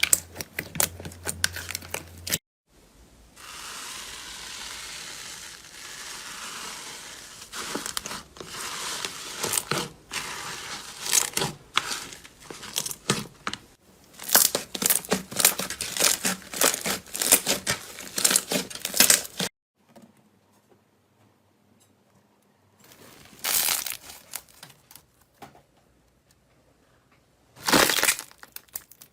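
Slime worked by hand, making dense crackling, crinkling clicks, with a few seconds of steady tearing hiss early on. It comes in several short clips separated by abrupt cuts, with a couple of near-quiet pauses in the second half.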